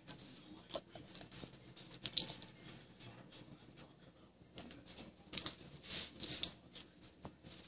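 A dog sniffing and shifting on carpet: scattered short rustles and light clinks, loudest about two seconds in and again twice between five and a half and six and a half seconds in.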